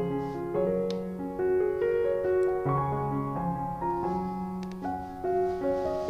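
Soft background piano music, notes following one another in a calm, flowing line.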